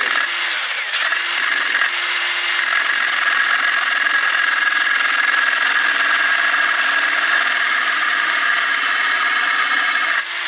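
Drill spinning an abrasive cutting wheel, grinding across a grease (Zerk) fitting clamped in locking pliers: a loud, steady grinding whine that cuts off suddenly at the very end.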